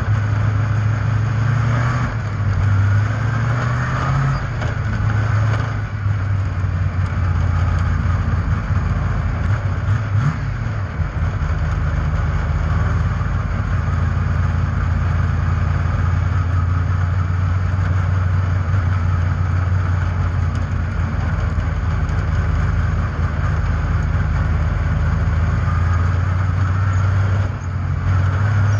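Speedway race car engines running hard, with the engine note wavering a little in pitch and a brief drop in level near the end.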